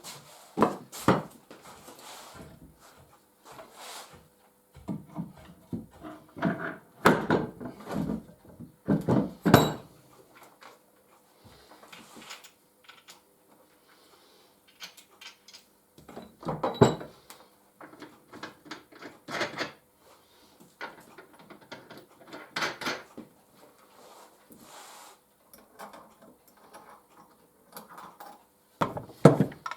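Irregular metal clunks, clicks and rattles of tools and parts being handled on a workbench, coming in clusters with quieter gaps between them.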